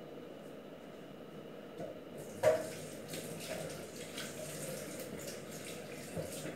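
A clunk about two and a half seconds in, then water running from a kitchen tap into a stainless-steel sink, with a few small knocks of things being handled in the sink.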